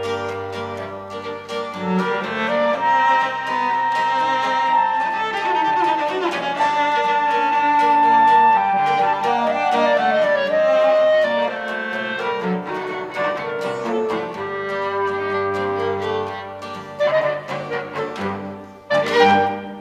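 A quartet of clarinet, viola, cello and acoustic guitar playing a tango, with long held melody notes and sliding passages. It closes with a few sharp accented chords near the end.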